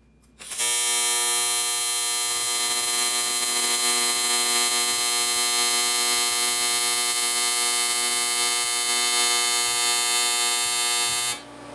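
AC TIG welding arc on aluminium, set to 120 Hz AC frequency, with the foot pedal pushed all the way down, laying a bead with 4043 filler rod. It is a steady buzz that starts about half a second in and cuts off just before the end.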